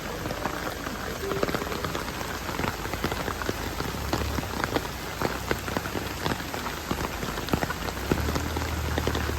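Rain falling steadily, with many separate drops hitting close by.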